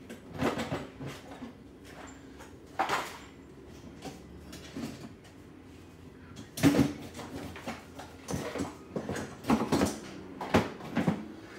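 Irregular clicks, clunks and rattles of hand tools and hardware being handled, with the loudest knocks a little past halfway and a few more near the end.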